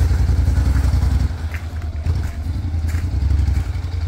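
Honda NC700X motorcycle's parallel-twin engine running at idle, a steady low rumble that eases after about a second and rises again, with a few light clicks.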